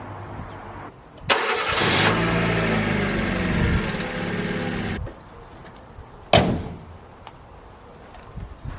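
Fiat Panda 4x4 engine started on fresh oil and a new filter: it catches about a second in, revs up and settles with falling pitch, runs for a few seconds, then is switched off abruptly. A single sharp knock follows about a second later.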